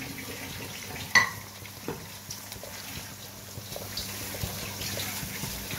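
Chopped tomatoes and onions frying in oil in a nonstick kadai with a steady sizzle, as a spatula stirs them, knocking and scraping against the pan. A sharp knock comes about a second in, with lighter ticks after.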